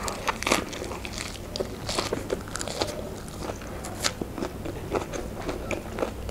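A mouthful of fresh green lettuce leaf being bitten and chewed, with many short, crisp crunches at an irregular pace.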